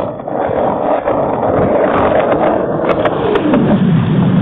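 Loud, steady rolling rush of riding over wet pavement in the rain, with a few faint ticks over it.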